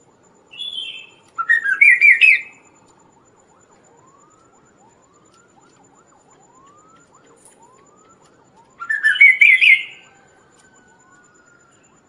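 Chestnut-capped babbler (kaso-kaso) singing: two loud, fast stuttering phrases of stepped whistled notes, one near the start and one about nine seconds in. Between them comes a faint rising whistle repeated about once a second.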